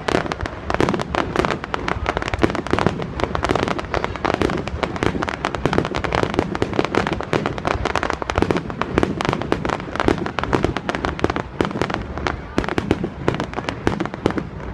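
Fireworks display: a dense, continuous barrage of sharp bangs and crackles, several a second, with no pause.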